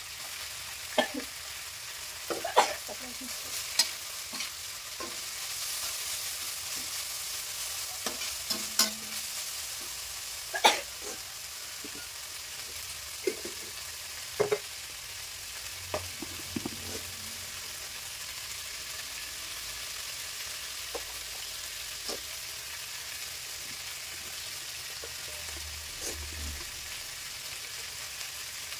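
Bean sprouts stir-frying in a wok: a steady sizzle, broken by irregular clinks and scrapes of a metal spatula against the wok as the food is turned.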